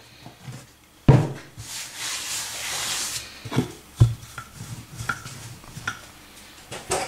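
Rolling pin working laminated croissant dough on a floured board: a soft rubbing roll, with a few knocks as the pin is set down and lifted, the loudest just after a second in and at about four seconds.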